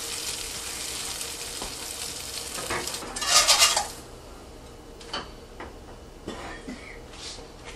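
Kitchen work at the stove: a steady hiss with a louder rush about three seconds in. The hiss cuts off suddenly a second later, and a few light clinks of a utensil against pans and dishes follow.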